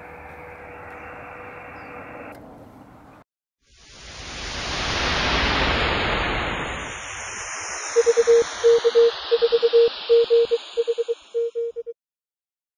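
Receiver audio from a Yaesu FT-817 in USB: a steady single tone in hiss, the carrier of a microwave beacon coming through the 10 GHz transverter. After a short break comes a swelling whoosh of noise, then a run of Morse code beeps at the same pitch that stops about a second before the end.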